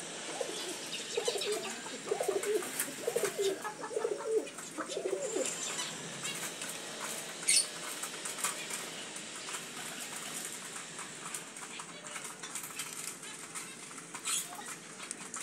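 Domestic pigeons cooing several times in the first half, with scattered light clicks of beaks pecking grain from a wooden tray.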